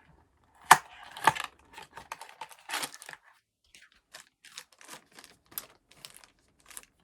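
Mystery blind-box packaging being torn and crinkled open by hand: two sharp clicks about a second in, then a string of short rustles and tears.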